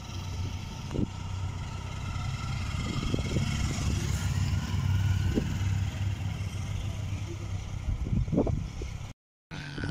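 Motorcycle engines running and revving as two bikes pull away and ride off. The sound grows louder through the middle, then drops out briefly near the end.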